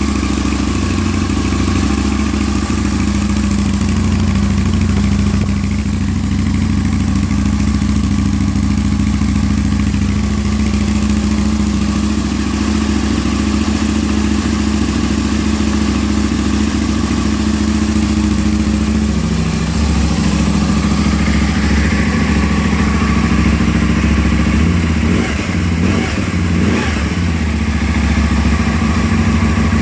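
Aprilia RSV 1000R's 60-degree V-twin running steadily at idle through Mivv Oval Carbon slip-on exhausts with the decibel-killer baffles still fitted, still pretty quiet. The note shifts slightly about two-thirds in, with a few brief wavers in pitch near the end.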